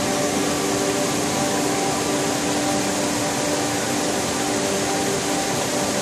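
Waterfall cascading over rocks: a steady, even rush of falling white water.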